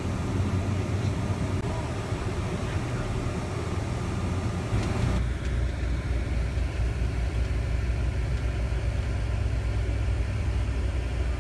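Fire engine's engine and road noise heard inside the cab, a steady rumble. About five seconds in the higher hiss drops away abruptly, leaving a steady low rumble.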